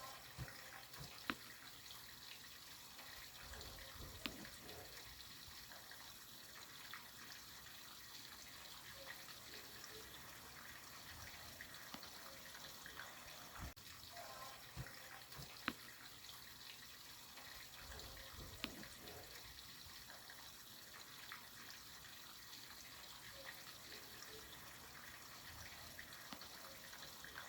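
Near silence: a faint steady hiss with a few scattered sharp clicks.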